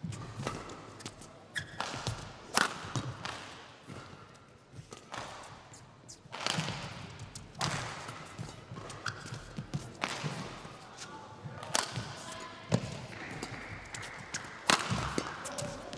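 Badminton rally: sharp cracks of rackets striking the shuttlecock at irregular intervals, about a second or more apart, with court shoes squeaking on the floor between shots.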